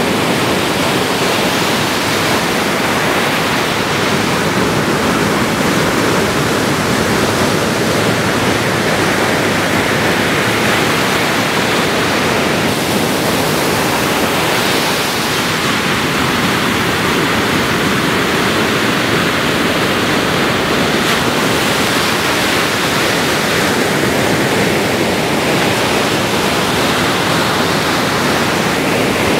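Ocean surf breaking, a steady, even wash of noise with no single wave crash standing out.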